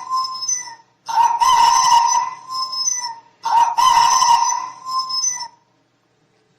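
Rooster crowing, cock-a-doodle-doo, three times in a row. Each crow lasts about two seconds, and the first is already under way at the start.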